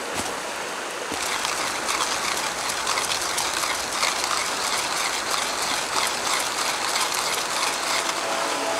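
Hand-cranked coffee mill with ceramic burrs grinding coffee beans: a steady, dense grind of rapid fine clicks that starts about a second in.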